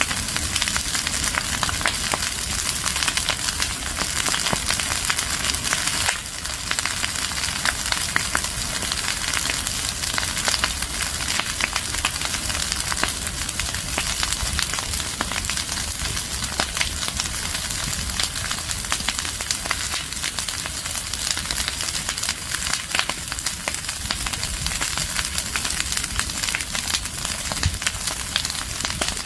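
Burning leaves and branches crackling: dense sharp pops and snaps over a steady hiss, dipping briefly about six seconds in.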